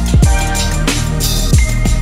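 Background music: an electronic beat with drums and deep bass kicks that drop in pitch.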